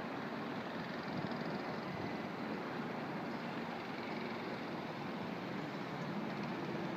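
Steady wash of distant city traffic noise, an even hum with no distinct events.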